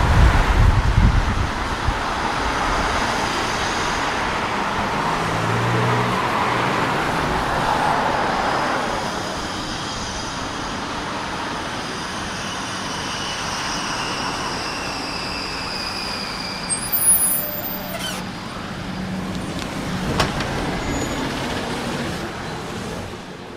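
Tram in street traffic, with a high electric whine that falls slowly in pitch as it slows, and a few sharp clicks near the end.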